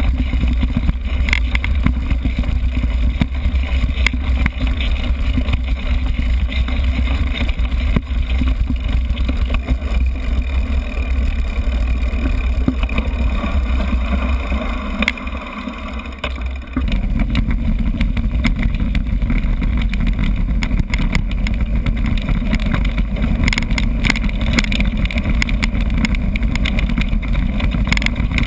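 Wind buffeting the microphone of a GoPro action camera on a moving mountain bike: a steady heavy low rumble with frequent small knocks and rattles from the bumpy track. The rumble drops away for a couple of seconds a little past the middle, then comes back.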